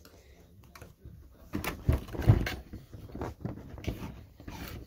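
Handling noise of a rod being worked into a hole in an RC glider wing: light knocks, taps and rustling, starting about a second and a half in, with the loudest knock a little past two seconds in.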